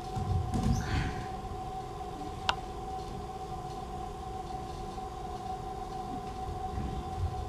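A steady drone of several held tones, the sustained accompaniment to a stage dance, with soft low thumps in the first second and again near the end, and a single sharp click about two and a half seconds in.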